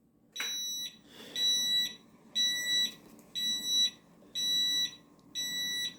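An electronic warning beeper sounding high-pitched beeps about once a second, each about half a second long, six in a row.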